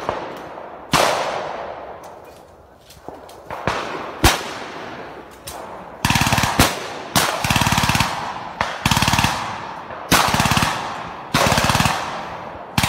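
Gunfire sound effect: a few single shots with echoing tails, then about six short bursts of rapid automatic fire.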